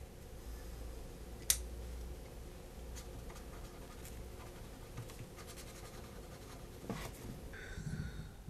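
Pen scratching on paper, with a single sharp click about a second and a half in.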